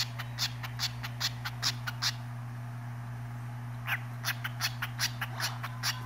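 Cockatiel chirping in a steady run of short, sharp calls, two to four a second, breaking off for about two seconds in the middle before starting again.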